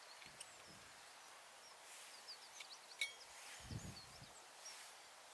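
Faint birdsong: small birds giving quick, high chirps and twitters throughout. There is a sharp click about three seconds in and a brief low rumble just after it.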